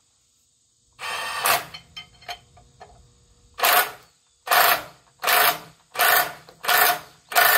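Hand socket ratchet on a track tamper's tamping-tool bolt, clicking in a steady run of short strokes, about one and a half a second, as a loose bolt is tightened. A shorter burst of the same kind comes about a second in, followed by a few light clicks.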